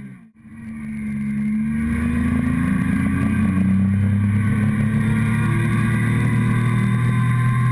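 Motorcycle engine heard close up from a mount on the fuel tank: the sound drops out for a moment just after the start, then the engine comes back and pulls steadily under way, its pitch rising slowly.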